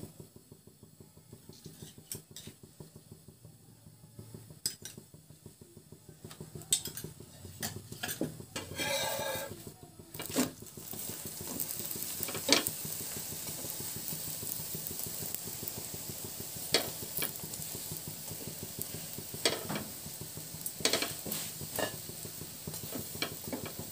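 Paratha frying in oil on a flat tawa, sizzling, while a steel spatula taps and scrapes against the pan. The sizzle turns into a steady, louder hiss about ten seconds in, just after a brief louder scrape.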